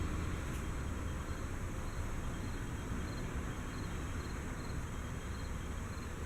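Faint insect chirping, short high chirps in small groups about every half second, over a steady low rumble.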